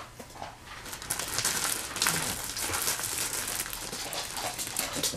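Clear plastic bag of dry dog treats crinkling and rustling as a hand rummages inside it, starting about a second in.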